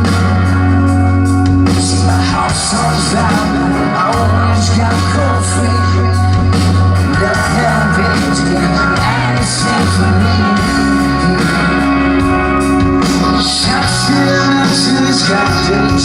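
Rock band playing live at full volume: electric guitars, a bass holding long notes that change every second or two, steady drum beats, and singing.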